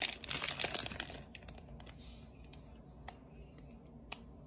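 Rapid crackling and crinkling of a plastic candy bag being handled for about a second, then a few scattered single clicks.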